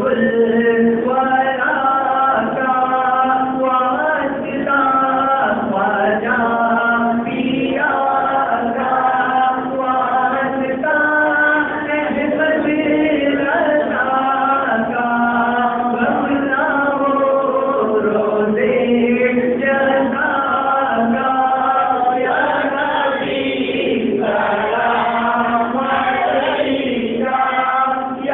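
Men singing an Urdu naat unaccompanied, without any instruments: a lead voice on a microphone with a group of men chanting along.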